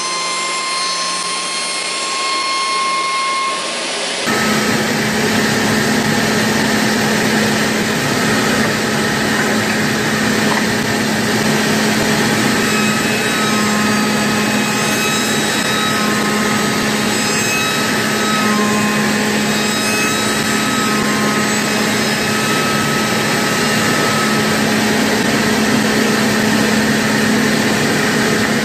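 Automatic wood copy shaper running, its spindle and cutters working wooden pieces: a loud, even machine noise with cutting sounds and short high whines coming and going. About four seconds in the sound changes abruptly, and a strong steady hum takes over underneath.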